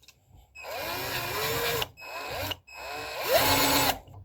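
Electric drill-driver run in three bursts, the motor pitch rising as each burst starts and then holding steady while it turns hardware on the bass.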